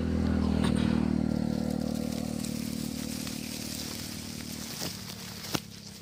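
A steady low engine hum that grows gradually fainter, with a sharp click a little after five seconds in.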